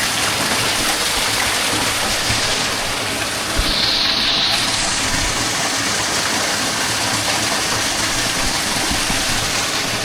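Steady rush of flowing water, an even loud hiss, with a short brighter hiss about four seconds in.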